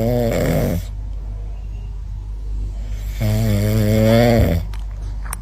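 A cat snoring: one snore tails off about a second in and a second long snore comes about three seconds in, over a steady low hum.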